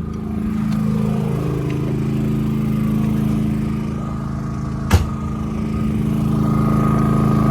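WEN 3800-watt inverter generator running steadily under load, powering a camper's air conditioner and refrigerators. A single sharp knock comes about five seconds in.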